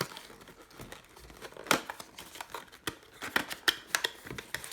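Box packaging being handled and emptied: paper and plastic crinkling, with irregular light clicks and taps, the sharpest about two seconds in.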